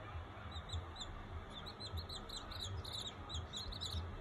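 Baby birds peeping: many short, high peeps in quick succession, getting busier partway through, over a low pulsing hum.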